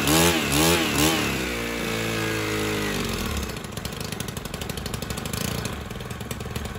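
STIHL FS 130 brushcutter's 4-MIX engine being blipped on the throttle, with a few quick revs in the first second. It holds a higher speed briefly, then drops back about three seconds in to a steady, slightly rough idle, which is set a touch low for the owner's liking.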